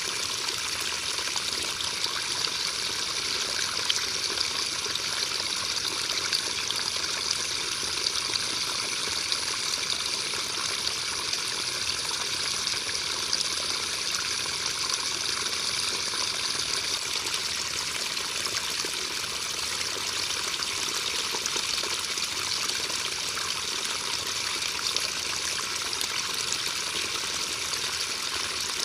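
Steady rain falling, a dense even hiss of drops with many small ticks of individual drops.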